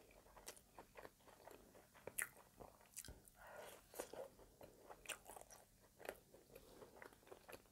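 Quiet close-miked eating: soft wet chewing and scattered mouth clicks as a gooey, caramel-soaked piece of brioche French toast is bitten and chewed.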